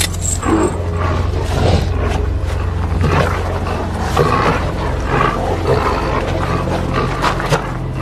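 Animal-like growling and snarling in rough, irregular bursts, over a low steady drone.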